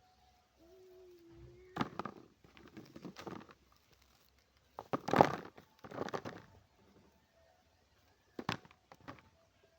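A short pitched animal call near the start, then irregular clattering knocks and rustling, loudest about five seconds in, with a few sharp knocks near the end.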